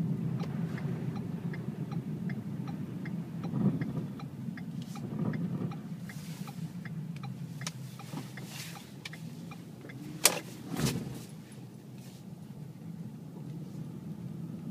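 Inside a 2012 Ford Fusion Sport's cabin, the 3.5-litre V6 and road noise hum steadily while the turn-signal indicator ticks at an even pace. A sharp knock about ten seconds in, followed by a softer one, is the loudest sound.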